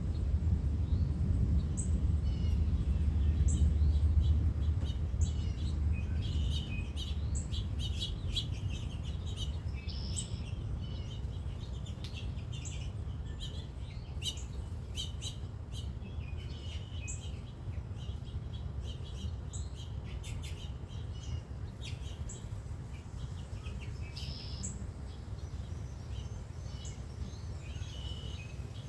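Several birds chirping and calling in quick short notes over a steady low rumble. The rumble is loudest for the first several seconds and then eases off.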